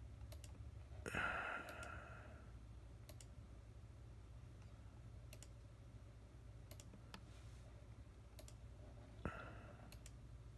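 Scattered computer-mouse clicks over a low steady hum. About a second in there is a louder brief noise, the loudest moment, and about nine seconds in a sharper single click.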